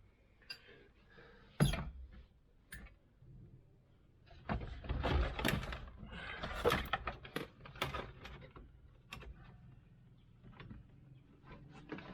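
Knocks, clicks and scraping of a part being worked loose and pulled out of a tractor by hand, with a sharp knock about two seconds in and a busy stretch of clattering in the middle.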